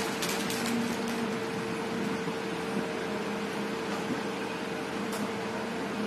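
Steady machine hum with one constant mid-pitched tone, like a room fan or air conditioner running. In the first second, a quick rattle of a plastic protein shaker bottle being shaken, and one short click about five seconds in.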